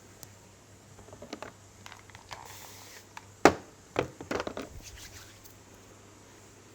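Hands working through a head and neck massage: soft rubbing and handling, then a sharp crack about three and a half seconds in, a second crack half a second later, and a quick run of small pops.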